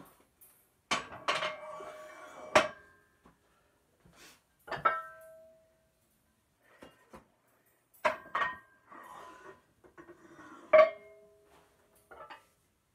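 Metal weight plates clanking as they are handled: about half a dozen sharp metallic knocks that each ring briefly, the loudest near the end.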